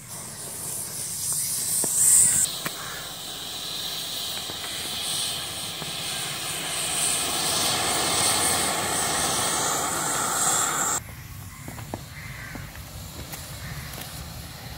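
Homemade sugar rocket motor burning with a steady rushing hiss that is loudest about two seconds in and cuts off suddenly after about eleven seconds. The motor gives no lift-off thrust, which the builder puts down to its M-seal epoxy putty plug having been taken out.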